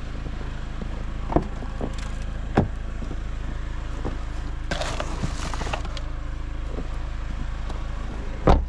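Pickup truck engine idling steadily, with a few sharp thumps as gear is thrown in and shut; the loudest thump comes near the end. A short rustle in the middle.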